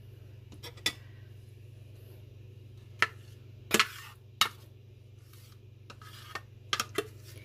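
Spoon clinking and scraping against a bowl as thick minced paste is scooped out: about six sharp, irregular clinks.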